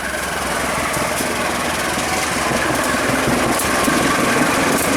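Diesel locomotive engine running steadily with a loud, heavy drone.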